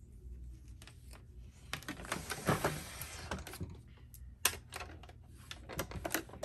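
Irregular clicks and taps from handling at a Brother sewing machine as a pinned fabric strip is set under the presser foot, busiest about two to three seconds in.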